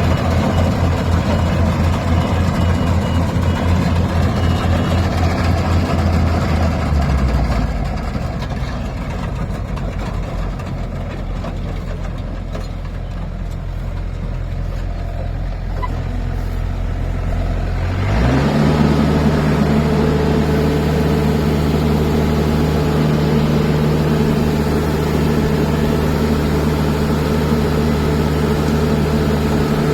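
Diesel engine of farm machinery running: a low pulsing idle, quieter in the middle, then revving up about 18 seconds in and holding a steady higher speed.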